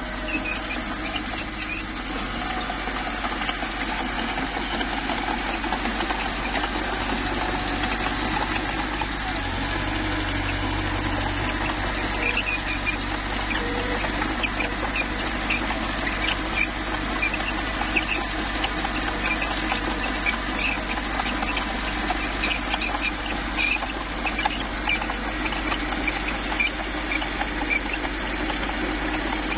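Mini crawler bulldozer's diesel engine running steadily under work, with frequent short high squeaks and clinks from its steel tracks as it moves.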